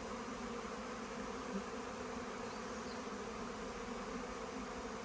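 A swarm of honey bees in flight, buzzing all around in a steady, dense hum of many wings, close enough that bees are landing on the person recording.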